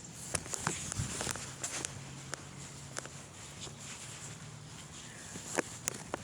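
Scattered light clicks and knocks at irregular times over faint background hum; no siren is sounding.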